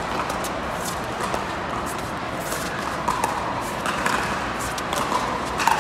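Pickleball rally: paddles popping against the plastic ball in an irregular run of hits, with a sharper hit near the end, over the steady murmur of an indoor arena crowd.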